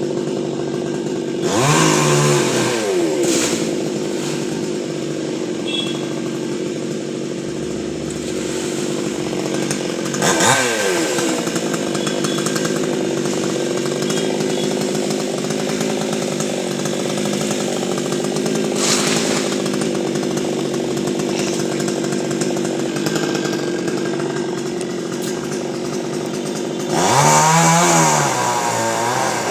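Chainsaw running steadily. Its engine speeds up and falls back briefly about two seconds in and again around ten seconds, then does so for a longer, louder stretch near the end.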